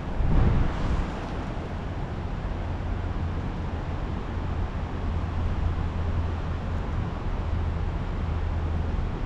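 Wind on an action camera's microphone: a steady low rumbling noise, with a brief louder rush about half a second in.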